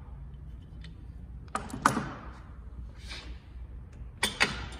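Clamps being put on and tightened against the door and router template: sharp clicks and knocks about one and a half seconds in and again near the end, with a brief scrape between.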